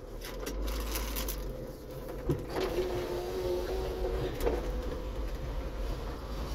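A car driving slowly over paving, with a steady low engine and road rumble. A mechanical whirring tone starts with a click about two seconds in and stops about two seconds later.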